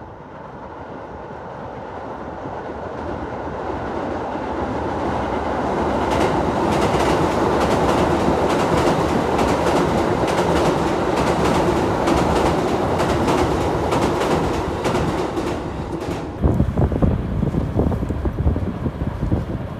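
Tokyo Metro Tozai Line electric train crossing a steel truss river bridge. Its rumble grows steadily louder over the first several seconds, then peaks with rapid clicks of wheels over the rail joints. About sixteen seconds in this cuts off suddenly to wind buffeting the microphone.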